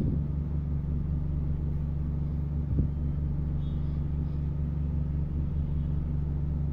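A steady low mechanical hum, even in level, with a single click about three seconds in.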